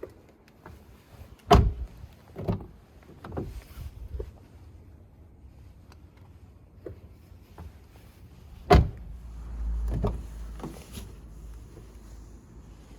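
Honda Accord car door being worked open and shut on its newly replaced door check link: two sharp knocks, about a second and a half in and again near nine seconds, with several lighter clunks between and after.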